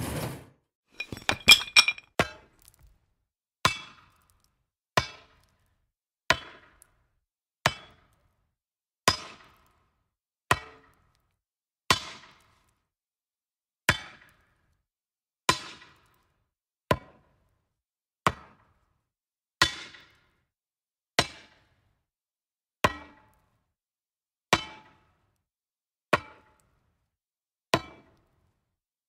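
A series of sharp single strikes, evenly spaced about one and a half seconds apart, each with a short ring that dies away quickly, like hammer blows. A quick flurry of hits comes about a second in, before the steady strikes begin.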